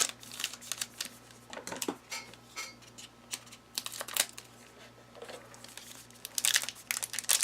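Trading cards being handled and flipped through by hand: scattered short clicks and brief slides of card against card, busier near the end.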